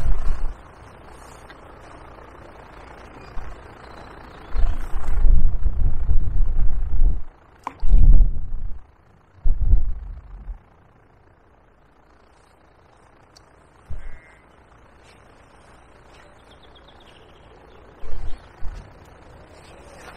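Wind gusting against the microphone: irregular, loud low rumbling buffets, three long ones in the middle and a few short ones near the start and end, over a quieter steady breeze.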